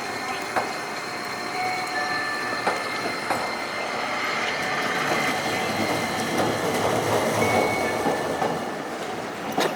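Toden Arakawa Line tram passing, its steel wheels squealing in thin high tones, with sharp clicks over the rail joints. It grows louder toward the middle and then eases off.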